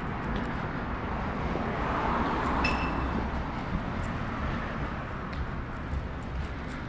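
City street at night with traffic: a car passes, its tyre and engine noise swelling about two seconds in and fading. A brief high chirp sounds near the three-second mark.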